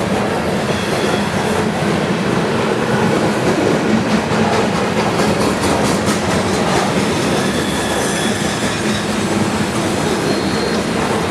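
CSX mixed freight train rolling past, its wheels clacking steadily over the rail joints. A faint high wheel squeal comes in near the end.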